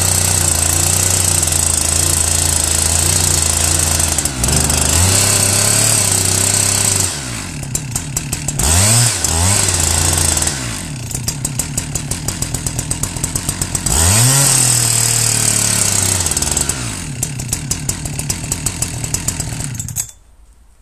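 Husqvarna 372XP two-stroke chainsaw cutting through a conifer stump at full throttle, with rev swoops as it bites. It drops to a fast, even idle twice, revving back up to cut between them, and is shut off near the end, the engine stopping abruptly.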